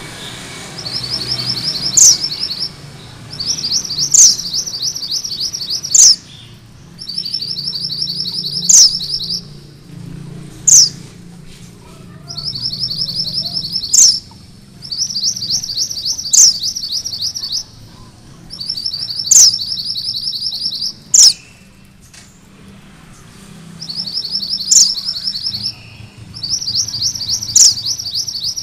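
Mantenan gunung merah (a red minivet) singing its rolling trill: fast, high trilled phrases of about two seconds, repeated with short pauses. Each phrase carries one sharp, louder high note.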